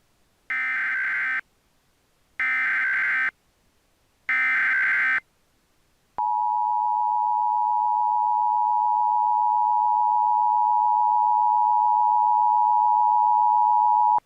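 Emergency Alert System tones: three short bursts of SAME header data, warbling digital tones about two seconds apart, then the steady two-tone EAS attention signal starting about six seconds in and holding.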